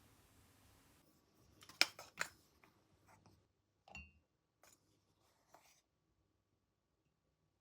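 Quiet room with a few small clicks and light taps of objects being handled, the two loudest close together about two seconds in.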